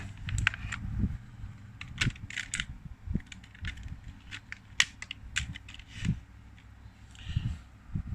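Irregular clicks and light knocks from a mechanical keyboard and its USB cable being handled and plugged into a laptop.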